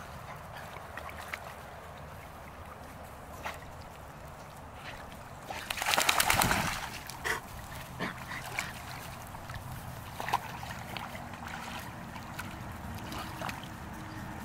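Water splashing and sloshing as Labrador retrievers wade and swim at the edge of a pond, with one loud splash, under a second long, about six seconds in.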